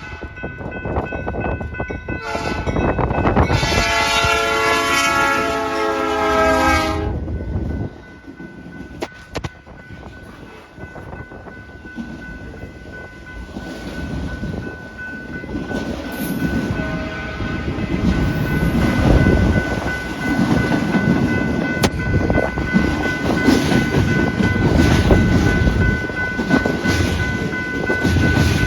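BNSF freight locomotive's air horn sounding one long blast starting about two seconds in, with a short faint blast around the middle. The train then rolls past with steady wheel-on-rail noise that grows louder toward the end, over wind rumble.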